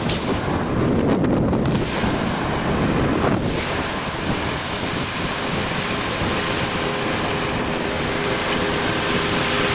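Ocean surf washing, with wind blowing on the microphone, as a loud steady rush. A faint steady drone joins in during the second half.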